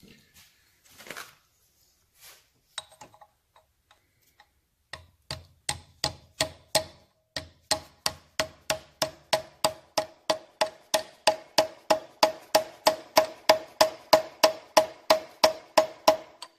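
Hammer tapping steadily on a steel socket, about three ringing taps a second, driving the interference-fit crankshaft pinion gear of a 1971 Triumph Tiger 650 engine onto its keyed crankshaft. A few scattered clicks come first, and the taps start about five seconds in and grow louder.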